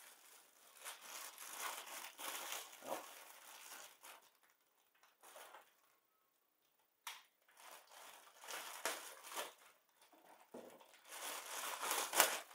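Clear plastic packaging bags crinkling and rustling in bursts as bagged items are handled and unwrapped. There is a quiet pause around the middle, a single sharp click about seven seconds in, and the loudest crinkling comes near the end.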